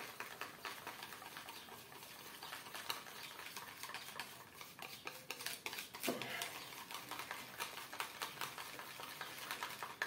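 Small wire whisk beating flour and milk in a small bowl, a quick, steady run of light clicks and scrapes as the lumps are worked out of the batter.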